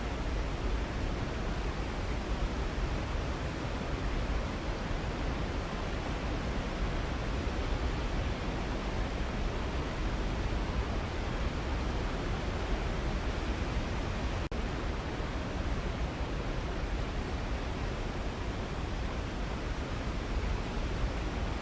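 Waterfall: falling water rushing steadily and evenly, heaviest in the low end, with one faint click about two-thirds of the way through.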